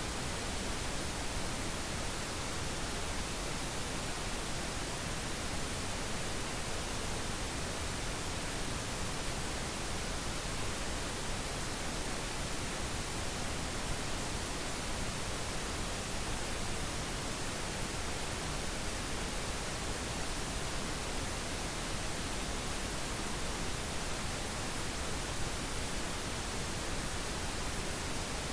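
Steady, unchanging pink noise: an even hiss spread across all pitches, with no events or changes.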